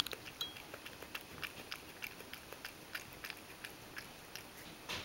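Ragdoll cat lapping goat milk from a metal bowl: a steady run of small wet clicks, about three to four laps a second.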